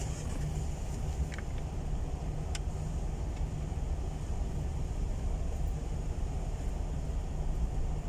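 Steady low engine rumble heard from inside a car's cabin, with a couple of short clicks in the first three seconds.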